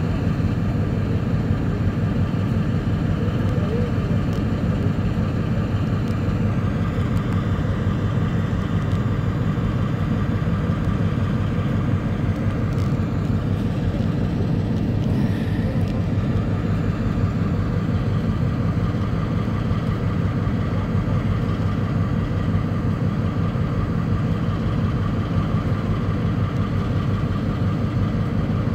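Diesel locomotive engine idling: a steady low rumble that holds an even pitch, with no revving or change.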